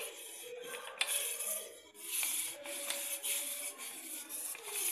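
Fingers scraping coarsely ground bajra (pearl millet) out of a stainless steel mixer-grinder jar into a steel bowl: a dry, gritty rubbing and scraping, with a light knock about a second in.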